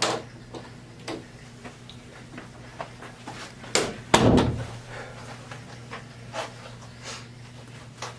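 Door sounds: scattered clicks and knocks, with one heavier bang about four seconds in, over a steady low hum.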